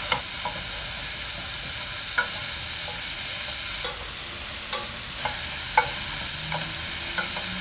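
Sliced porcini mushrooms sizzling steadily in butter and olive oil in a stainless steel pot as they are stirred. The stirring utensil knocks against the pot several times, loudest about six seconds in.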